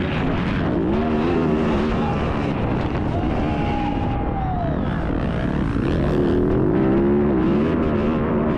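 Motocross dirt bike engine revving up and down, rising and falling in pitch as the bike accelerates and backs off around the track. It is heard close up from a camera mounted on the bike.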